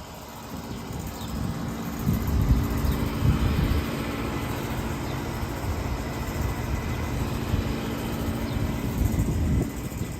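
Trane air conditioner unit running with a steady hum and a low rumble. The hum sets in about half a second in and drops away near the end.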